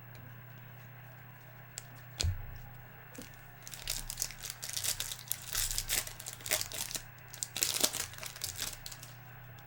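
Foil trading-card pack wrappers being torn open and crinkled, with a single knock about two seconds in. The crinkling starts a little before four seconds in and comes in two loud stretches.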